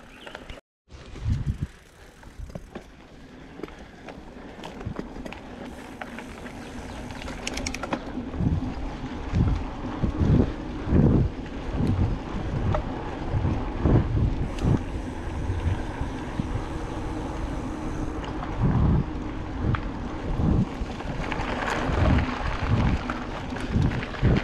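Mountain bike riding along a dirt trail: tyre and drivetrain noise with wind on the microphone. From about eight seconds in come frequent short, low thuds as the bike hits bumps.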